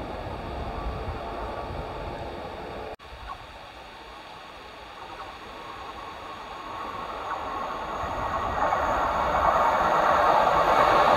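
Northern Class 170 Turbostar diesel multiple unit approaching, its engine and wheel noise growing steadily louder over the last few seconds. Before that, a steady outdoor background rumble that breaks off sharply about three seconds in.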